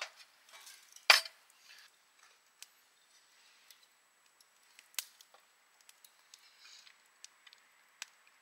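A scattered series of sharp clicks and light taps, the loudest about a second in, with softer ones around five and eight seconds in.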